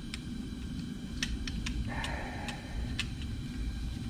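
Light metallic clicks and ticks of pliers and a small coil spring against the steel bracket of a heater control as the spring is squeezed and worked into place, with a brief scrape about two seconds in.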